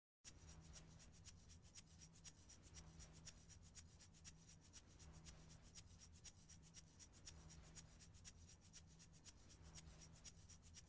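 Near silence: faint, rapid crackling clicks over a low hum that swells and drops about every one and a half seconds.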